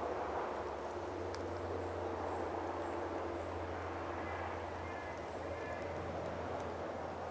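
Steady outdoor rushing noise with a low hum underneath, and a few faint high chirps about two-thirds of the way through.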